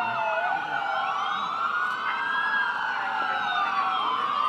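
Several emergency-vehicle sirens wailing at once, their pitches rising and falling slowly and crossing one another.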